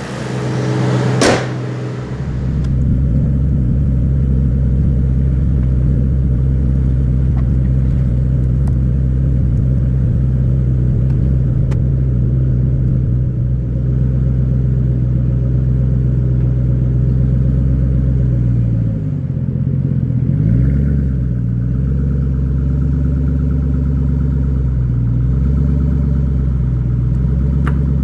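Ford Mustang's overhead-cam V8 running at low revs with a steady low rumble. There is a sharp knock about a second in, and around two-thirds of the way through the engine note briefly drops and rises again.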